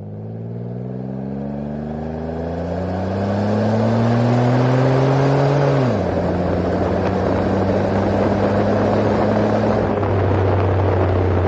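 1998 Chevrolet Lumina LTZ's V6 running through 18-inch Cherry Bomb glasspack mufflers while the car accelerates. The engine note rises steadily for about six seconds, drops suddenly as the automatic transmission upshifts, then holds a steady lower note.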